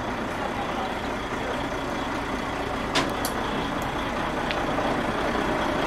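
Heavy transporter truck's diesel engine running steadily at idle, with two sharp clicks about halfway through.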